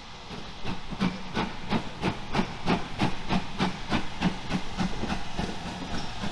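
Steam locomotive working, its exhaust beating in even chuffs about three times a second that begin about half a second in and weaken near the end.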